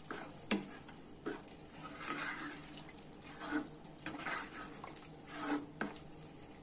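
Spatula stirring a thick vegetable-and-paneer masala gravy in a granite-coated nonstick pan: wet strokes about once a second, with a sharp tap of the spatula against the pan about half a second in and again near the end.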